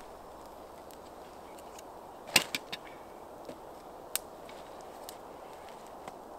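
Sticks of wood knocked together and laid onto a smoking campfire of wet wood: a quick cluster of three or four sharp knocks about two and a half seconds in, then single clicks every second or so, over a steady hiss.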